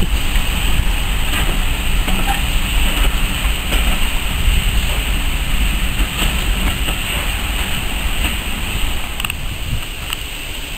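Railway passenger coaches rolling past at low speed, a steady rumble from the wheels on the rails with occasional clicks, easing off slightly near the end.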